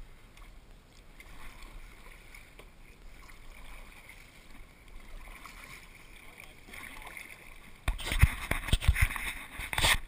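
Kayak being paddled on calm water: soft lapping and dripping at first. Then, about eight seconds in, two seconds of loud knocks and splashes close to the microphone.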